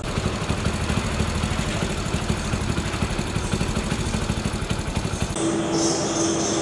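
An engine idling with an even low throb. About five seconds in, it gives way abruptly to a steady hum with a high hiss.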